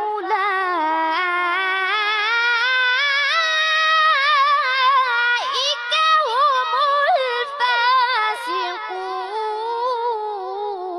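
A boy's high voice reciting the Quran in melodic tajweed style, drawing the phrase 'fa-ula'ika' out into one long ornamented line. The pitch climbs slowly over the first few seconds, then wavers and turns.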